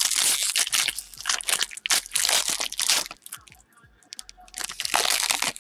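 Foil wrapper of a 2018 Topps Series 1 jumbo baseball card pack being torn open and crinkled by hand, in dense crackling bursts. There is a short lull about three and a half seconds in, then more crinkling near the end.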